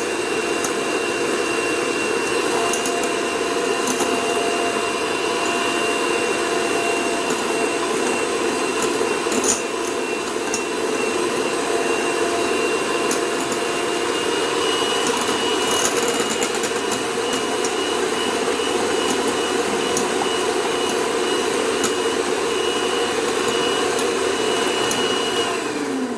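Electric hand mixer running steadily, beating eggs, with a few light clicks along the way. Near the end it is switched off and the motor winds down with a falling pitch.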